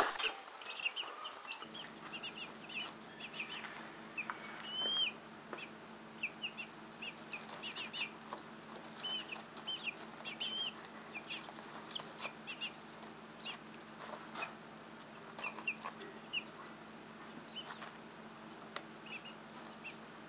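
A group of young Ameraucana chicks peeping and cheeping in a brooder: many short, high chirps, some rising and falling, scattered throughout, with light clicks. A steady low hum sits underneath from about two seconds in.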